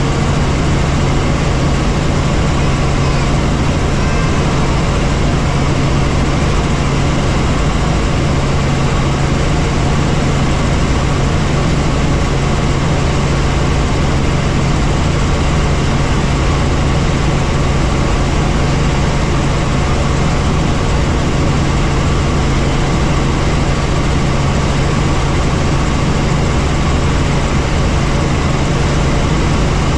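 Helicopter running in flight: a steady, loud drone of engine and rotors, with a constant low hum over an even rush of noise.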